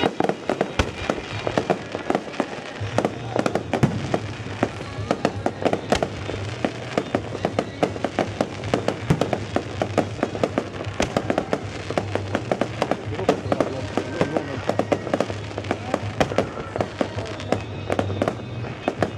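Fireworks display: a dense run of sharp bangs and crackles from bursting shells, several a second, with music playing underneath.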